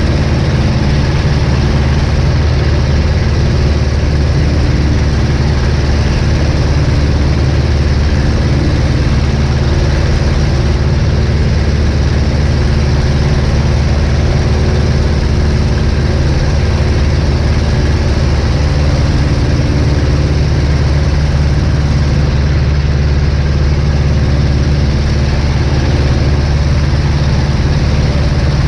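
1947 Aeronca Champ's small four-cylinder air-cooled engine and propeller running loud and steady at takeoff and climb power as the plane lifts off and climbs out.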